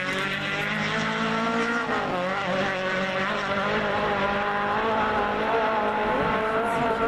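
Rally car engine running at high revs, its pitch dropping sharply about two seconds in as it changes gear, then holding and climbing slightly.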